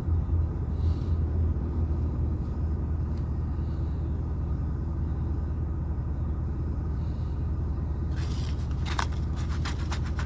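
Coin scratching the coating off a lottery scratch-off ticket in a run of quick strokes, starting about eight seconds in, over a steady low rumble.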